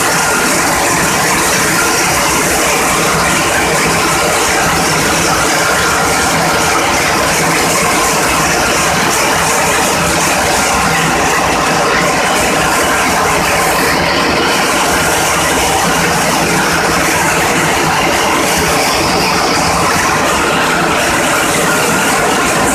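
Steady, loud din of a large ship's diesel engine running in its engine room: a dense mechanical noise with a few faint steady hums, unchanging throughout.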